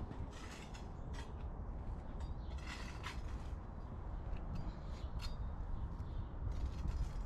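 Wind on the microphone, a steady low rumble, with a few short scraping rustles.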